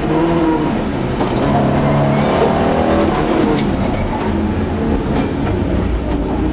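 Volvo 242 GT's inline-four engine heard from inside the cabin, running under changing throttle with the revs rising and falling.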